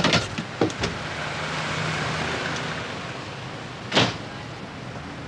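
A telephone receiver hung up and handled, a few sharp clicks and knocks at the start, over street traffic with a car passing, its noise rising and fading. About four seconds in, one loud knock as the telephone box door swings shut.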